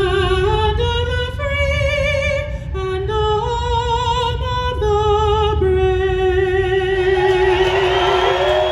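A woman singing solo and unaccompanied into a microphone, her voice moving from note to note with vibrato and then holding one long final note. The crowd starts cheering and whooping over that held note near the end.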